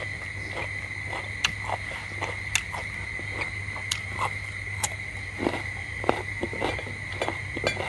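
Close, irregular chewing and mouth sounds from people eating, with a few sharp clicks scattered through. A steady high whine and a low hum run underneath.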